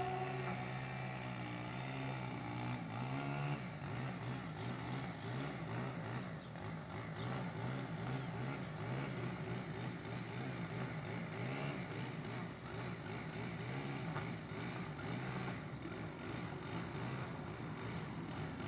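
DE6400 diesel-electric shunting locomotive running light at slow speed, its diesel engine running steadily. The engine note changes about three and a half seconds in.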